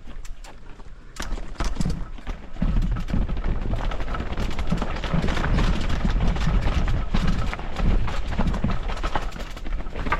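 Dirt bike engine chugging at low revs with irregular knocks and clatter, louder from about a second in and again from about two and a half seconds in.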